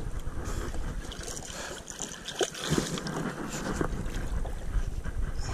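Water lapping and splashing against a kayak hull, with wind on the microphone and a few small knocks of tackle being handled.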